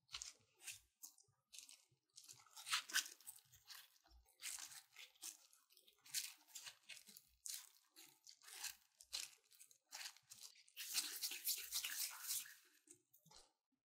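Thin disposable plastic gloves crinkling and rustling as gloved hands press and roll soft dough, in short irregular bursts, with a longer, louder stretch near the end.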